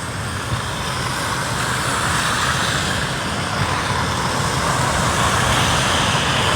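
City street traffic: a steady rumble and hiss of vehicles that grows a little louder.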